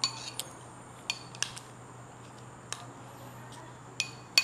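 Metal spoon clinking against a glass bowl while stirring fruit rojak in its thick sauce. About seven short ringing clinks come at uneven intervals, the loudest near the end.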